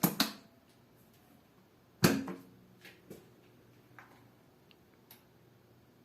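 Two sharp clunks, one at the start and a louder one about two seconds in that rings briefly, followed by a few light clicks.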